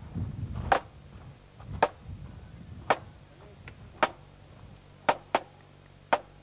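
Marching band drum struck alone at a steady walking beat, about one sharp stroke a second, with a couple of quicker strokes near the end.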